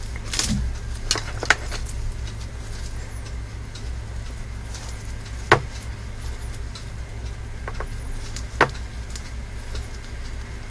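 Handling of raw marinated chicken in a plastic tub with gloved hands: a few sharp clicks and knocks, the loudest about five and a half seconds in and another near nine seconds, over a steady low hum.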